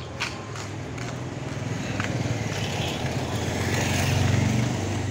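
A small motor vehicle engine running close by. Its drone grows louder to a peak about four seconds in, then falls away near the end.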